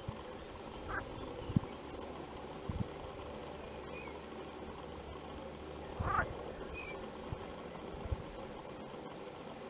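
Frogs calling over a steady background, with two short cries about a second in and around six seconds, the uploader's "crying frogs". Faint high bird chirps come and go.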